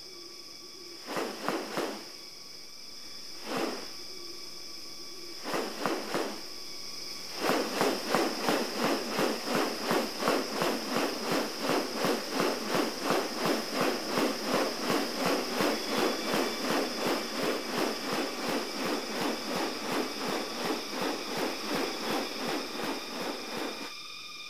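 Rainforest ambience: a steady high insect drone with a rapid, even series of rasping pulses, about two to three a second, starting about seven seconds in after a few shorter bursts.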